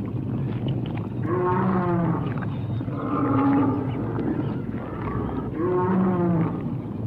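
Dinosaur roar sound effect on a film soundtrack: three drawn-out pitched calls, each about a second long, the first and last dipping slightly in pitch, over a steady low rumble.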